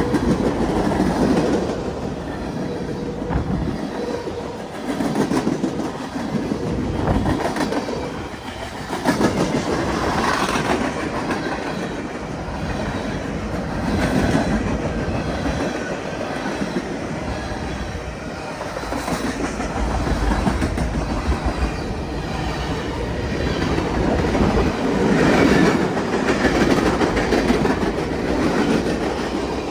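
Norfolk Southern manifest freight train's cars rolling past on steel wheels: a continuous rumble and clatter that swells and fades every few seconds.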